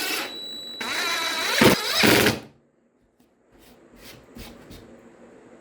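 A power drill motor runs at a changing speed for about two seconds and then stops abruptly. After a short silence come a few faint knocks and clicks.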